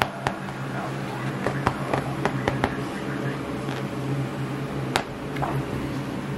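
Paper pages of a picture book being handled and turned, giving scattered sharp clicks and rustles, with a cluster of clicks about two seconds in and a louder one near the end. Under them runs a steady low hum.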